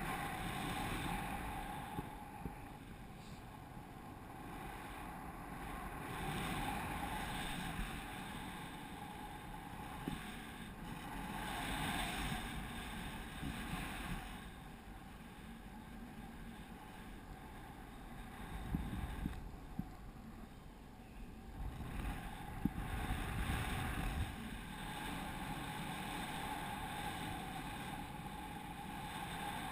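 Wind rushing over the microphone of a camera worn by a paraglider pilot in flight, swelling and easing, with a few small knocks about two-thirds of the way through.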